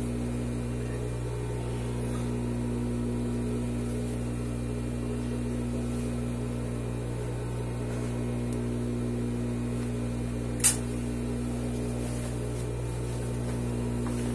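Steady low electrical hum, with a single sharp click about ten and a half seconds in.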